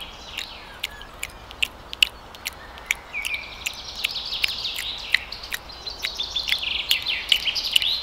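Birds chirping and twittering, rising into a fast, dense chatter from about three seconds in, over a scatter of irregular sharp clicks.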